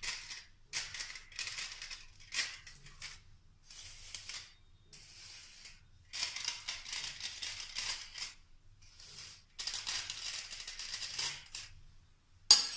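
Aluminium foil crinkling and crackling as a kitchen knife pierces and slits the foil covers stretched over cups, in repeated short bursts with pauses between, and one sharper, louder crackle near the end.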